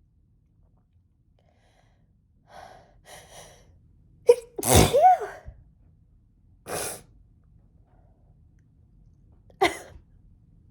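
A woman's sneezing fit: a few short hitching in-breaths build up, then one loud voiced sneeze about four seconds in. A shorter breathy burst follows about two seconds later, and another short, sharp sneeze comes near the end.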